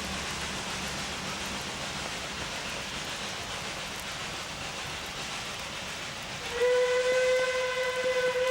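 Steady rain hiss, then about two-thirds of the way in a Puffing Billy NA class narrow gauge steam locomotive's whistle is blown, one long loud steady blast that is still sounding at the end.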